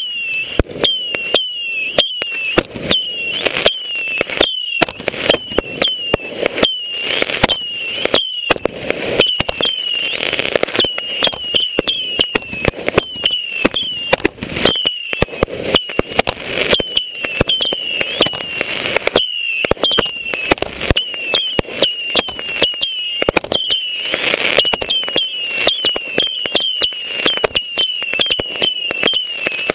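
Consumer fireworks launching and bursting in rapid succession, about two or three sharp bangs a second. Many shots carry a short high whistle that falls in pitch.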